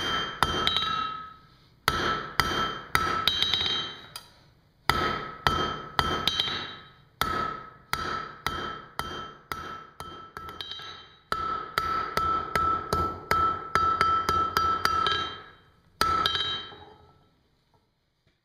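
Hand hammer striking a red-hot metal rod on a steel anvil in runs of quick blows with short pauses between, the anvil ringing with a clear high tone after each strike; the fastest run comes in the second half, and a last single blow near the end rings out and fades.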